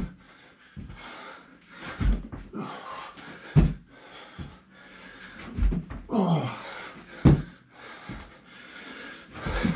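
A man panting hard and grunting through burpees, with thumps of his body landing on the floor about once a second.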